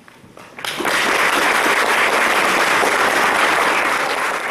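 Audience applauding, breaking out about half a second in and holding as a dense, even clapping.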